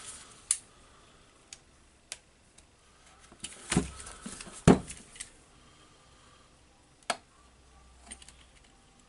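Scattered light clicks and knocks from handling a cordless impact wrench and small hand tools, with one louder knock about halfway through.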